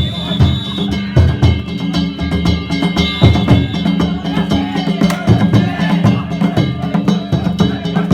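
Danjiri festival music: taiko drums beaten in a fast, steady rhythm, with metallic hand gongs ringing over them.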